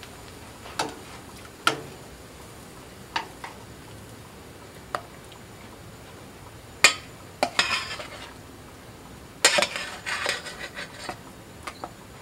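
Metal cooking utensils tapping and scraping against a pan or griddle: a few separate sharp taps, then two stretches of scraping, one about midway and one a little later, over a faint steady sizzle of batter-coated sausage patties frying on a flat-top griddle.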